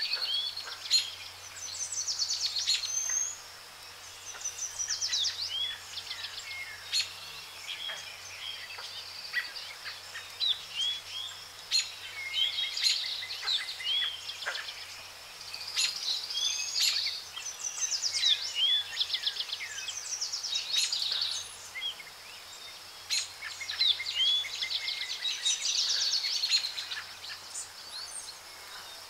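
Several birds calling and singing: short rising chirps and rapid trills that come in bursts every few seconds.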